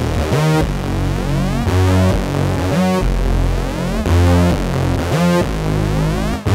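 Electronic background music led by synthesizer, with a rising synth sweep repeating about once a second over a steady bass.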